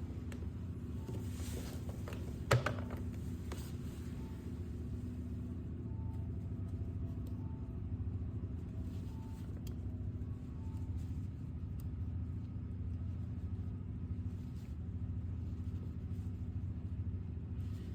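Steady low background hum, with one sharp click about two and a half seconds in.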